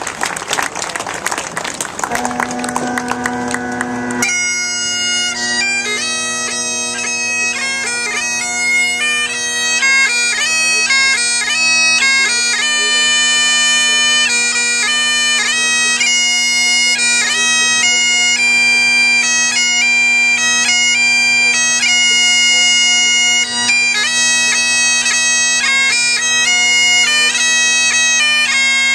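Bagpipes: applause dies away as the drones strike in about two seconds in, and the chanter takes up a tune about four seconds in and plays on over the steady drone.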